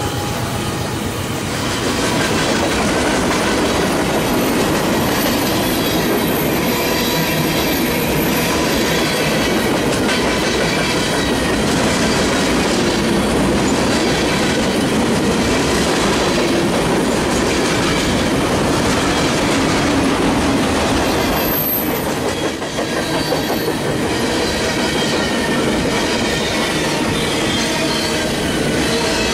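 Freight train of loaded flatcars rolling past: steady rumble and clatter of steel wheels on the rails, with high-pitched wheel squeal coming and going.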